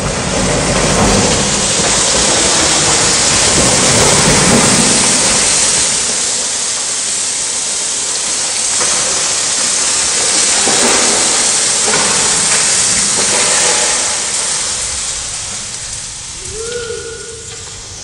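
A loud, steady rushing hiss that starts abruptly and fades over the last few seconds.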